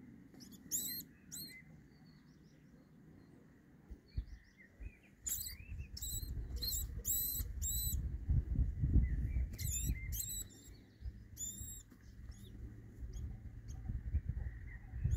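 A vole squeaking in distress while a cat attacks it: about a dozen short, high-pitched squeaks in clusters. A low rumbling noise runs underneath from about five seconds in.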